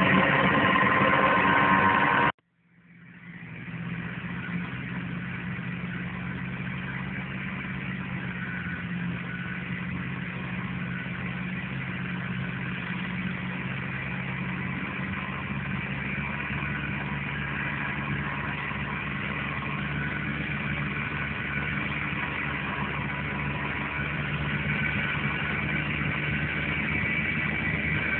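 Music for the first couple of seconds, which cuts off abruptly. After a moment of silence, the Case IH Puma 140 tractor's diesel engine fades in and runs steadily while it pulls a slurry tanker.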